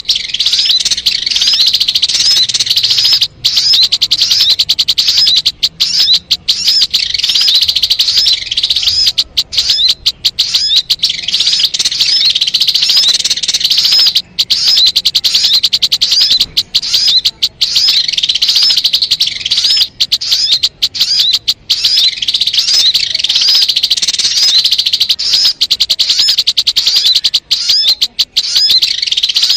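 Sogon bird singing: a dense, continuous stream of rapid, high-pitched chirping notes with only brief breaks, from a looped lure recording used to call the birds in for trapping.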